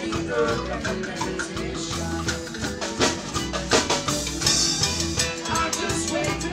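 Live band playing, with a drum kit and cymbals keeping a steady beat over repeating low bass notes.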